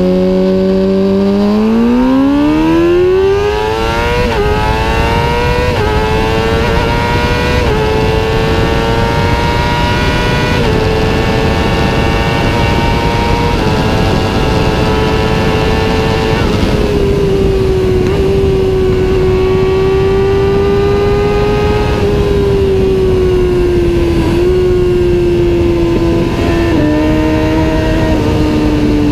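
Kawasaki ZX-6R inline-four with a Two Brothers aftermarket exhaust, running loud. Its pitch climbs sharply over the first few seconds, rises further in a few small steps and holds high, then slowly eases down through the second half.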